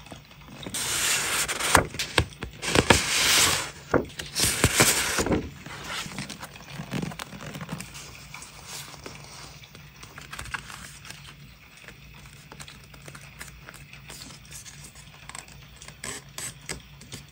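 Sheets of patterned paper rustling and rubbing against each other as a stack is handled and leafed through, loudest for the first five seconds or so. After that, quieter paper handling with light taps and ticks.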